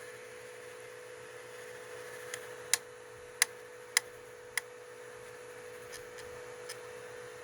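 Tronxy XY2 Pro Titan 3D printer running with a steady hum, broken by a run of five sharp knocks starting about two and a half seconds in, roughly half a second apart, with a couple of fainter ones later. The owner suspects a faulty extruder, as the filament jumps back a little each time it knocks.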